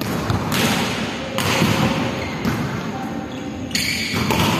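Volleyballs being struck and bouncing: a few dull thuds, each ringing on in the echo of a large sports hall.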